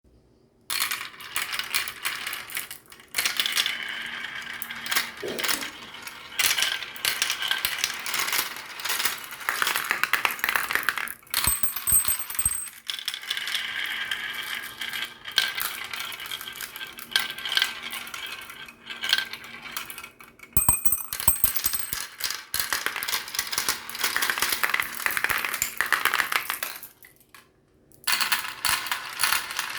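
Many marbles rolling and clattering down a marble run track: a dense rattle of small clicks and knocks that breaks off briefly a few times, with a couple of heavier thuds near the middle.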